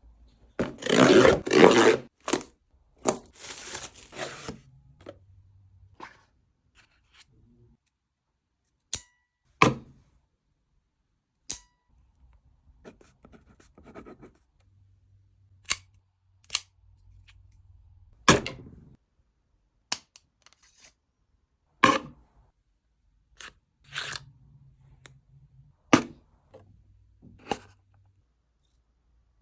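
Packaging being unboxed: paper or plastic tearing and rustling loudly for the first few seconds, then a string of single sharp clicks and snaps a second or two apart as the contents are handled.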